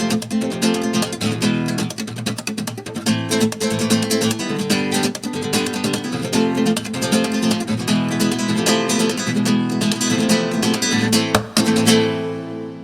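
Flamenco-style acoustic guitar music: rapid plucked runs and strums, dropping away in the last second.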